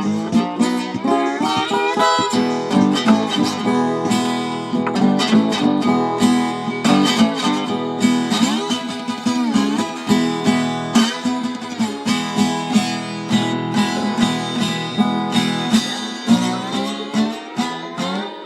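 Acoustic guitar played with picked and strummed chords, a country-style instrumental passage with no singing.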